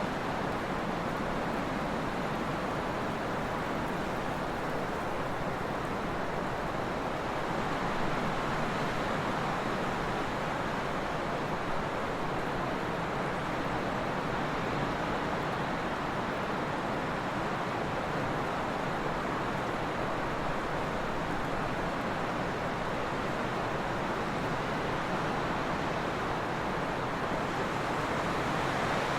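Steady trade wind blowing, a continuous rushing noise that swells slightly now and then.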